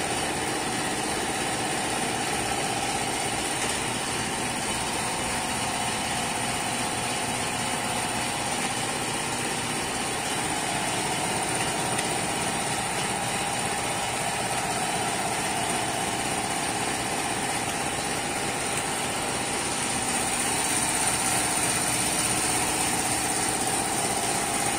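Steady drone of running machinery with a steady high whine over it, swelling slightly near the end.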